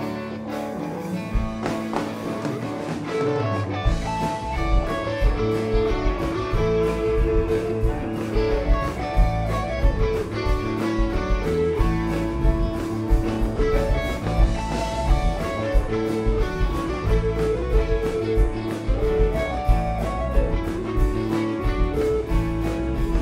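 Live rock band playing: electric and acoustic guitars carry the melody over keyboard, with bass and drums coming in fully about four seconds in.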